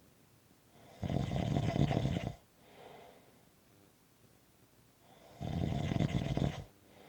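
A sleeper snoring: two long, loud snores about four seconds apart, each followed by a fainter breath.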